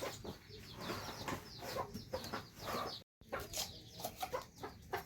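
Chickens clucking, many short repeated calls one after another. The sound cuts out completely for a moment just after three seconds in.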